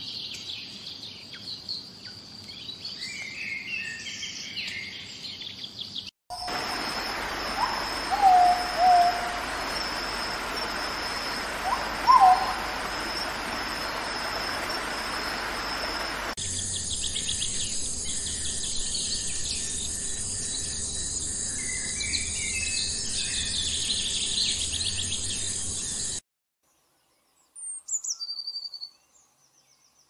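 Spliced stretches of forest ambience. First, birds chirping over a steady high insect drone. Then a steady hiss with two short, low, loud calls about four seconds apart, followed by more bird chirps over a strong high insect drone. Near the end the background cuts out and only a few short falling bird whistles remain.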